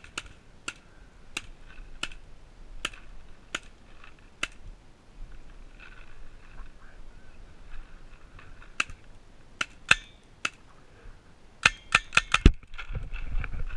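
CO2 paintball markers firing sharp single shots, roughly one every second at first, then a quick burst of about six shots near the end, followed by a low rumble.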